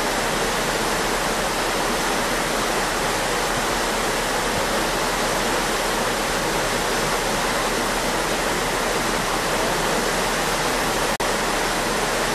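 Steady rushing of a ship's wake, the propeller wash churning white water behind the stern. There is a brief dropout about eleven seconds in.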